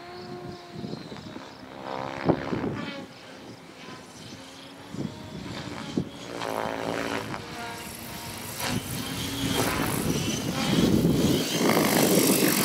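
T-Rex 700 radio-controlled helicopter in flight, its rotor and motor whine rising and falling in pitch as it manoeuvres. It grows louder over the last few seconds as it comes down low, with two brief sharp snaps around two and six seconds in.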